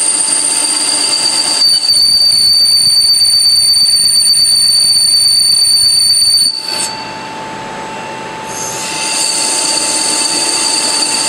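Lathe cutting tool turning a spinning metal workpiece: a loud, steady metallic squeal made of several high held tones. It gets louder about a second and a half in, drops and shifts to a lower tone about six and a half seconds in, then builds back up about two seconds later.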